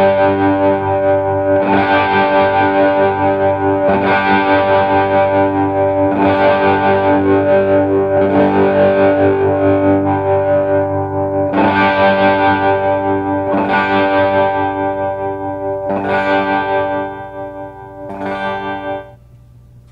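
Les Paul-style electric guitar with humbucker pickups played through a distorted amp: chords strummed and left to ring, restruck about every two seconds, while the volume and tone knobs are turned so the brightness and level change from chord to chord. The playing gets quieter near the end and stops about a second before the end.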